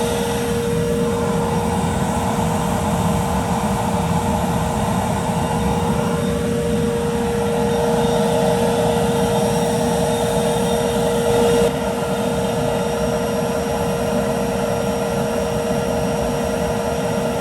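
Gas burner of a foundry furnace firing with a steady rushing noise, an exhaust vacuum running with it, as the furnace is brought up toward 1,000 degrees. A steady tone in the mix stops about two-thirds of the way through.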